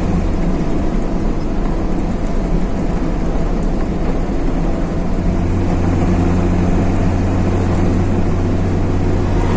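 Heavy truck's engine and tyre noise heard inside the cab while cruising on the highway. It is a steady low drone that eases off about half a second in and picks back up around five to six seconds in.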